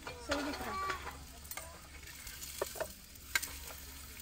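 Roti frying in ghee in a steel frying pan on a small gas stove, a faint steady sizzle. A louder scraping burst about half a second in, then a few sharp metal clinks of tongs against the pan.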